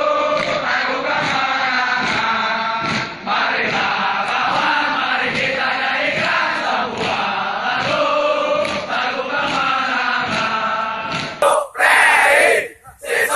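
A large group of men chanting in unison, with a regular beat under the voices. About 11.5 seconds in it gives way to louder, broken group shouting.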